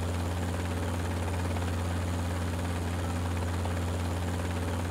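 Helicopter in flight: a steady, deep droning hum with a constant hiss over it, unchanging throughout.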